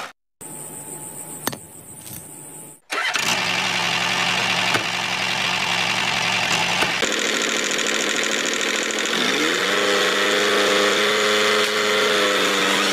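Small engine running, in edited stretches: a quieter segment in the first few seconds, then a louder steady engine note whose pitch rises about two-thirds of the way through.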